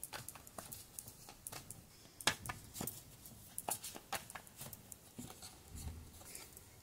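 A tarot deck being shuffled by hand: soft, irregular card flicks and taps, with one sharper slap a little over two seconds in.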